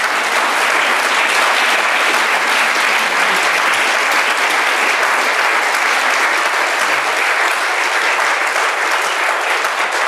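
Audience applauding: steady, dense clapping that holds at one level throughout.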